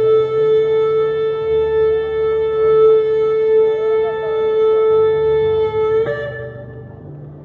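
Shofar blown in one long, steady blast, a single held note rich in overtones. About six seconds in the note cracks and then tails off more quietly.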